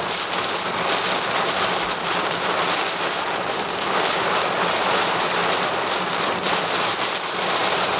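Heavy rain pelting a car's roof and windscreen, heard from inside the moving car, a dense steady hiss with a faint low hum underneath.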